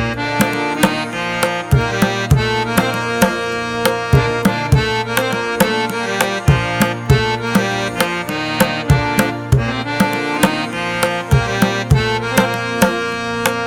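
Instrumental background music: a quick, steady beat of sharp drum strokes over sustained melodic notes.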